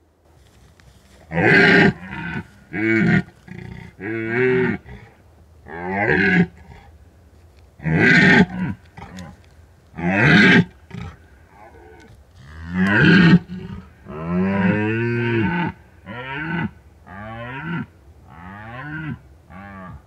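Red deer stag roaring in the rut: about a dozen roars in quick succession, each half a second to two seconds long, many falling in pitch. The longest, steadiest roar comes a little past the middle, and shorter roars follow it.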